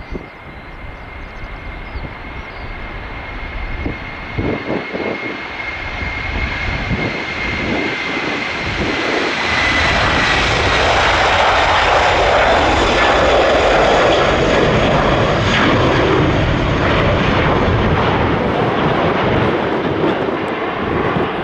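Airbus A330-200 twin-jet on its takeoff roll and liftoff at takeoff thrust. A steady high engine whine is heard at first, then the roar builds as the jet accelerates past, loudest from about halfway through as it lifts off.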